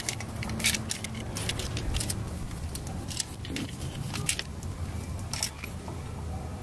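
Screwdriver clicking and scraping on the terminal screws of a 120 V outlet as a wire is fastened to it: a dozen or so small, irregular metallic clicks over a low background rumble.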